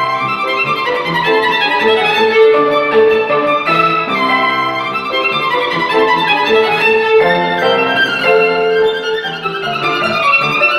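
Violin bowed in a slow melody of long held notes, over a low accompaniment.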